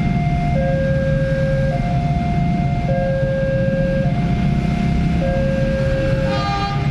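Railway level-crossing warning alarm sounding a two-tone electronic chime, alternating a lower and a higher note about once a second, over a low steady rumble. A short horn sounds near the end.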